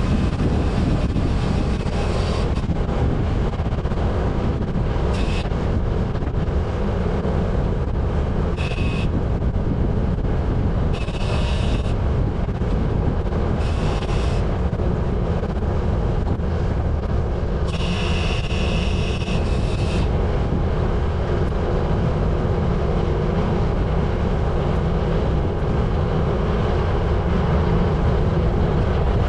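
Steady wind buffeting on the microphone of a bike-mounted camera, mixed with low road rumble from riding along a lane. Several short high-pitched tones come and go during the ride.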